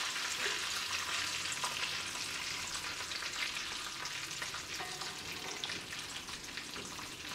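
Hot oil sizzling and crackling in a kadai after shallow-frying fish, slowly dying down.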